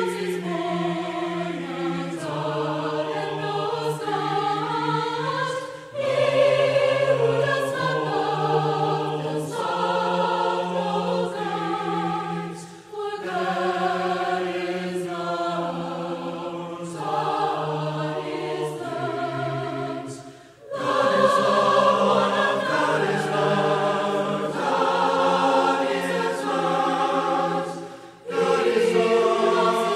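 A choir singing, laid over the pictures as background music, in long held phrases with brief pauses between them about every seven to eight seconds.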